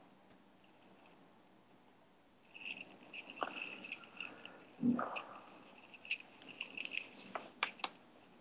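Quiet scattered clicks and rustling, like something being handled close to the microphone, with a soft thump about five seconds in.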